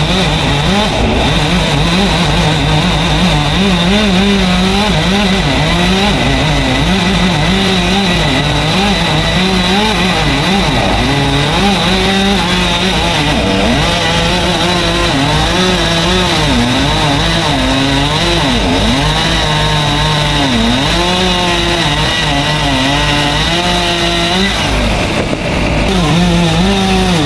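Chainsaw running at high revs, its pitch dipping and recovering again and again as the chain loads up in the cut: sawing through a large tree trunk.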